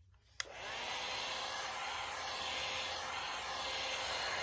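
A heat gun switched on with a click about half a second in, then blowing steadily with an even rushing hiss as it heats vinyl wrap film.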